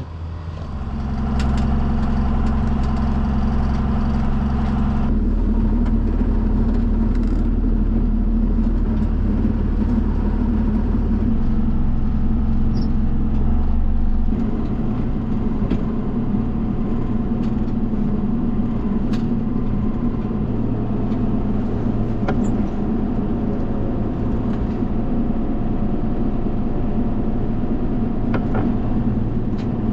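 Farm tractor engine running steadily, its note changing a few times as the tractor moves the stalk shredder.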